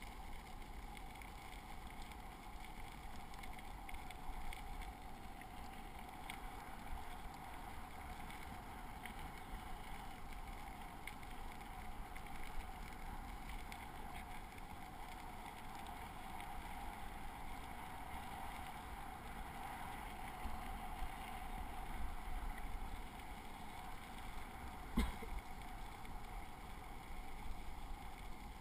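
Bicycle tyres rolling steadily over a crushed-gravel trail, with wind on the action camera's microphone. Small clicks run through it, with one sharper knock about 25 seconds in.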